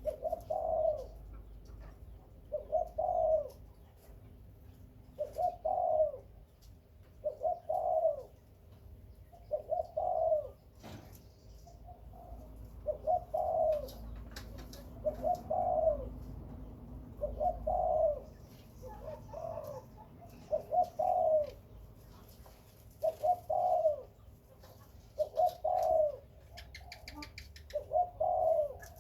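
Spotted dove cooing: a string of short, low coo phrases repeated about every two seconds.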